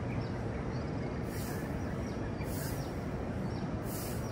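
A street broom sweeping pavement, with a swish about every 1.3 seconds, over a steady low rumble of city traffic. Faint bird chirps come through now and then.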